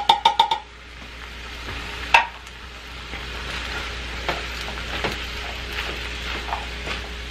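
A rapid run of metallic taps as the last corn is shaken out of the can, ending about half a second in, then chicken, vegetables and corn sizzling in a frying pan while a spatula stirs, with a sharp knock on the pan about two seconds in.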